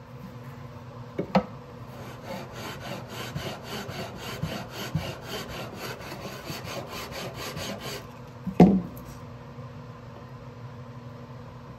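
Sanding block rubbed quickly back and forth on the fingerboard of a 1947 Martin guitar neck, about four strokes a second for some six seconds. A knock comes shortly before the sanding and a louder knock just after it stops.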